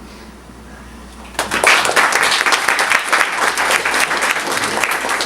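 Quiet room with a low hum, then about a second and a half in an audience breaks into applause that keeps going.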